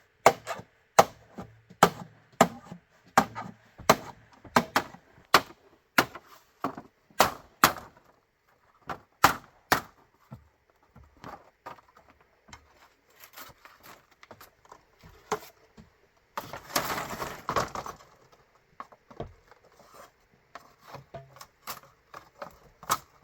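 Bamboo being chopped with a blade: sharp, even strikes at about one and a half a second, thinning out to scattered strikes after about eight seconds. Near the middle there is a longer scraping, rustling noise.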